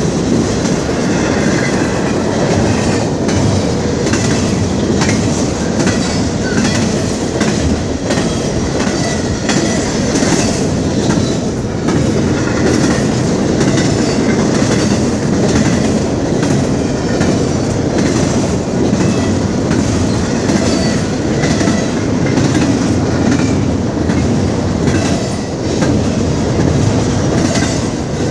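Double-stack intermodal container train rolling past, loud and steady, its wheels clicking over the rail joints.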